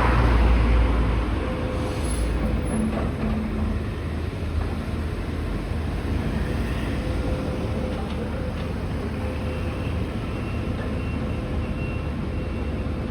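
Steady low engine rumble, loudest in the first second or so, with a faint steady whine running through it.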